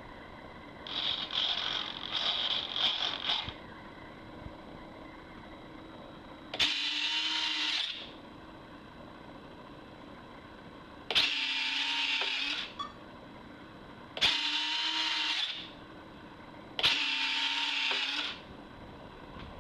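Turnigy electric landing-gear retracts on a model jet whirring as the gear cycles up and down: four separate runs of about a second and a half each, each starting with a click and holding a steady high whine. An uneven mechanical whirring comes about a second in, before the first run.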